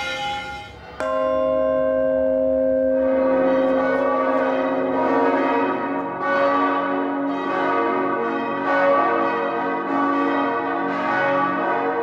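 A large bell is struck once about a second in and rings on. From about three seconds in, a full peal of five swinging church bells joins, their strokes overlapping at roughly one a second.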